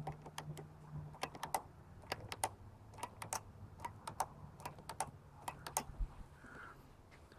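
Primer bulb on a Fuji Micro XG-SF3700 inverter generator being squeezed repeatedly by hand, giving a run of light, irregular clicks, a few a second.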